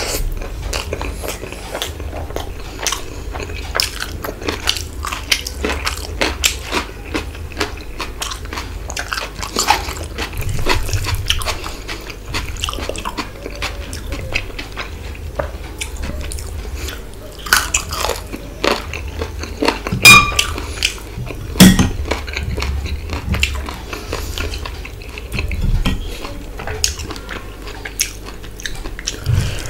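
Close-miked wet chewing and smacking of a mouthful of rice and mutton curry eaten by hand, with many small mouth clicks. A couple of sharper clinks stand out about two-thirds of the way through.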